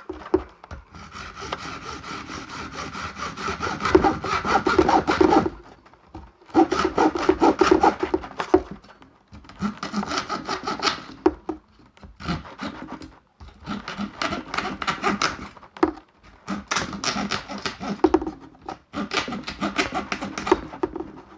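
A carbon-fibre fishing-pole section being trimmed by hand with a fine saw blade: rasping sawing strokes in repeated bouts of a few seconds, with short pauses between them.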